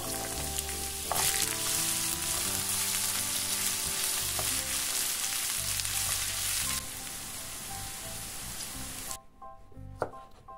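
Carrot and red bell pepper strips sizzling in hot oil in a non-stick frying pan while being stirred with a spatula. The sizzle swells about a second in, eases near seven seconds and stops suddenly about nine seconds in. Near the end a knife strikes a wooden cutting board once.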